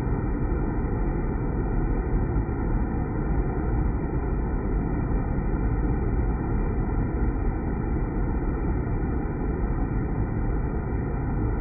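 Water spraying and splashing down into the water pool inside a cylindrical steel deaerator tank: a steady rushing noise with a strong low rumble.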